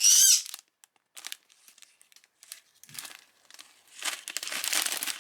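Plastic packaging crinkling and rustling as diamond-painting kits and their bags of drills are handled, in scattered bursts and then more steadily near the end. It opens with a short, loud, high-pitched call that bends in pitch.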